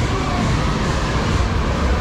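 Loud, steady rumbling and rattling of fun-house machinery, with no clear single event.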